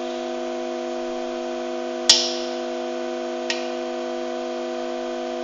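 Steady hum of a compression testing machine slowly crushing an aluminium drinks can. About two seconds in comes a sharp crack, the loudest sound, and a smaller click about a second and a half later, as the can's wall buckles under the load.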